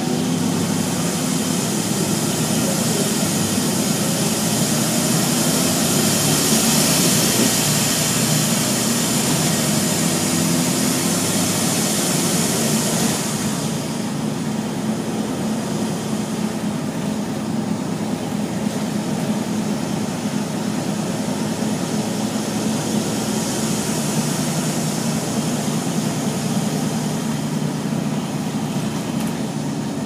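Wright Eclipse Urban Volvo bus heard from inside the cabin while driving: the diesel engine runs steadily under a loud, hissing rush from the engine cooling fan. The fan's rush cuts off suddenly about halfway through and comes back more faintly near the end.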